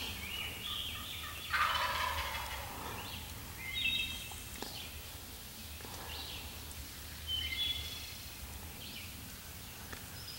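Wild turkey gobbler gobbling at close range: one loud, rattling gobble about a second and a half in, then two shorter, fainter calls around four and seven and a half seconds.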